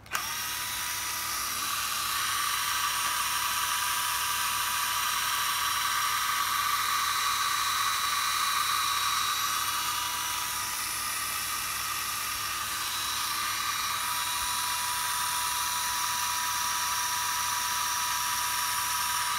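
Black & Decker CD231 9.6 V cordless drill running free with no load: its small motor and gearbox give a steady high whine that starts suddenly and holds at an even pitch.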